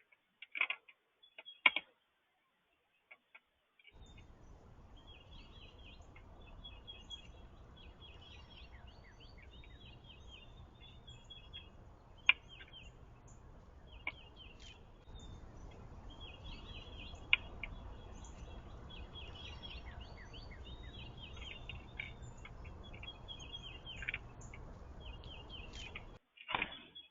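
Small birds chirping in quick runs of high notes over a steady low background noise, with a few louder single calls.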